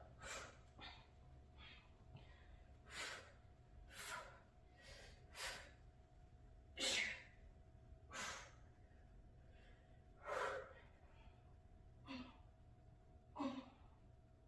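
A woman's short, forceful exhalations during kettlebell Russian twists, about one a second and uneven in strength, each breath pushed out with a twist. They are faint.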